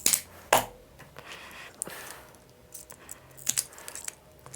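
Hand wire strippers snapping shut and pulling insulation off thin copper cable conductors: two sharp clicks near the start, a soft rustle of the insulation slipping off, then more clicks about three and a half seconds in.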